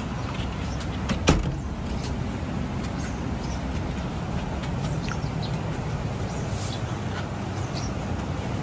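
Steady low rumbling background noise, with one sharp click a little over a second in and a few faint high chirps later.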